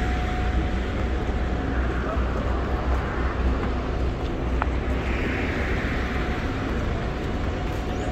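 City street traffic: a constant low rumble, with vehicles passing that swell and fade twice.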